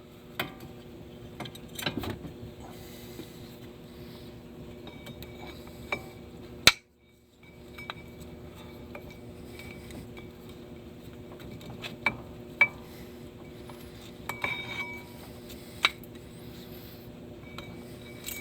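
Scattered metal clinks and clanks of hand tools and steel parts being handled during brake and axle reassembly, over a steady background hum.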